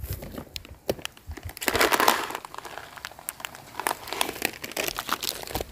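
Close, irregular crinkling and crackling with many sharp clicks, densest about two seconds in.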